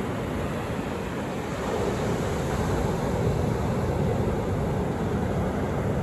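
Atlantic Ocean surf breaking and washing up a sandy beach: a steady rushing of waves that swells a little louder about a second and a half in.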